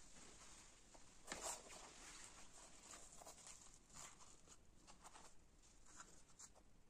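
Faint crackly tearing and rustling of a puffed, deep-fried bhatura being pulled apart by hand, in several short irregular rips, the strongest about a second and a half in.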